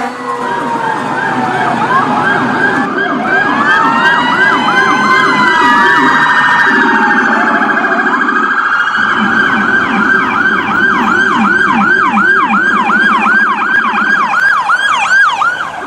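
Electronic emergency-vehicle siren tones, more than one sounding at once. A slow rising-and-falling wail overlaps fast yelps for the first few seconds. From about halfway on, a fast yelp repeats about three times a second over a lower-pitched warble.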